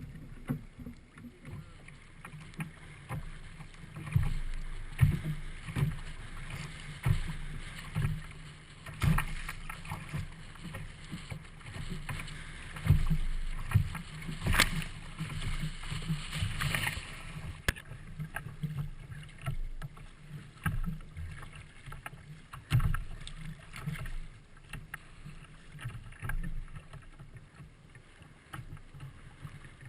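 Strong gusty wind buffeting the microphone in uneven low thumps, over water sounds around a sea kayak. There is a louder rushing hiss about halfway through.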